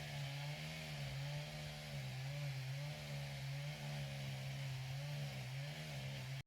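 A small engine drones steadily and faintly, its pitch wavering slightly, then cuts off suddenly at the end.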